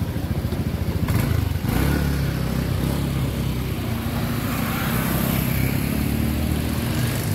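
A motorcycle engine running close by, a steady low rumble that gets a little fuller about two seconds in.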